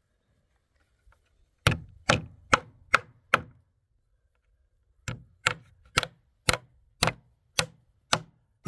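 Repeated sharp blows of a struck tool: five in quick succession, a pause of a second and a half, then nine more at about two a second.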